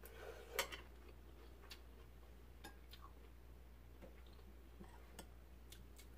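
Metal chopsticks clicking lightly against each other and the dishes as greens are picked up: scattered small clicks, the loudest about half a second in, over a low steady hum.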